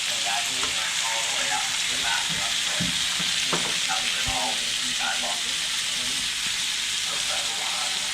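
Bacon and steak frying on a barbecue, a steady sizzle, with a few light knocks about three to four seconds in.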